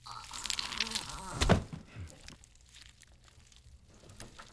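Crackling, crinkling rustle with a heavy thump about a second and a half in, then fainter scattered rustling.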